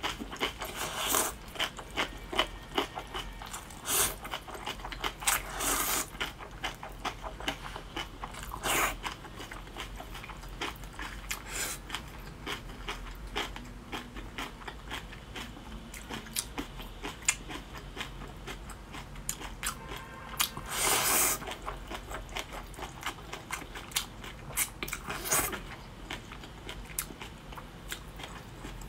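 Close-up eating of spicy fire-chicken instant noodles with kimchi. Several long slurps of noodles, about six in all, with wet chewing, biting and lip smacks in between.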